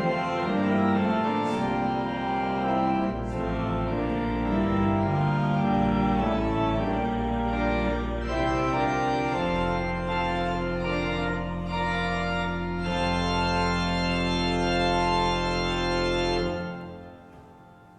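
Church organ playing a run of chords over a moving bass line, then holding one long final chord from about halfway through. The chord cuts off near the end and dies away in the room's echo, closing the piece.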